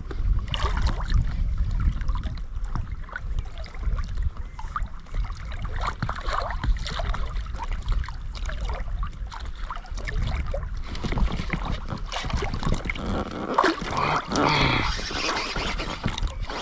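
Wind rumbling on the microphone with water lapping against a small inflatable boat, and scattered light clicks as a baitcasting reel is cranked to retrieve a spinnerbait.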